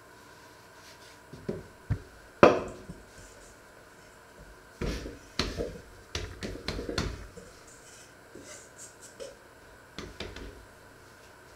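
Hands working a ball of dough on a floured wooden board: irregular thumps and pats, the loudest about two and a half seconds in and a busy run of them from about five to seven seconds.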